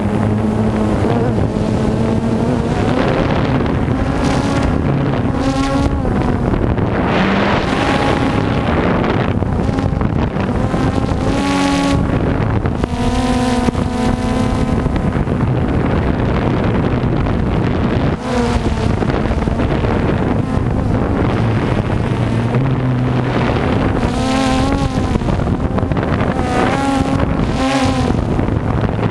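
Drone propellers buzzing steadily, the pitch wavering up and down as the drone manoeuvres, with wind noise.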